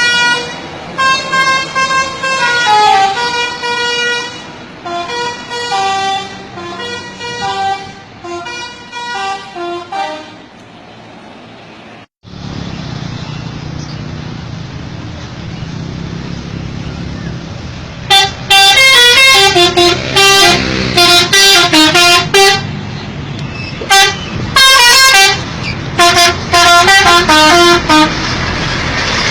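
Telolet bus horn, the multi-trumpet musical air horn of a Garuda Mas bus, playing a rapid tune of short changing notes. A first run fades over the first ten seconds. After a brief dropout there is a steady low rumble, and the horn tune starts again about 18 seconds in, louder, in repeated bursts.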